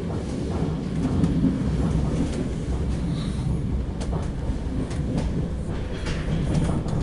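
Running noise heard inside a Deutsche Bahn Intercity 2 double-deck coach on the move: a steady low rumble from the wheels and running gear, with scattered clicks from the wheels on the track.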